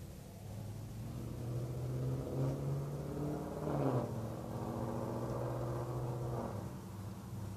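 A motor vehicle driving past. Its engine hum builds, is loudest about four seconds in, where its pitch drops as it goes by, then fades away.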